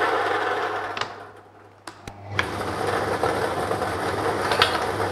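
Air-mix lottery draw machine's blower running, with ping-pong-style balls rattling around inside its three plastic chambers. The whirr dies away about a second in, a few sharp clicks come around two seconds, and it then starts again and runs steadily, with one louder clack near the end.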